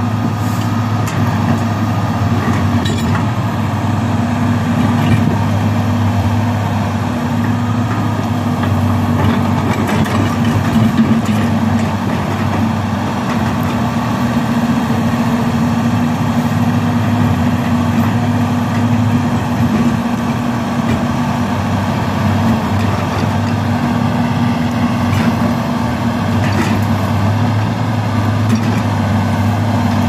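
Hitachi crawler excavator's diesel engine running at a steady, even pitch as the machine works its boom and bucket.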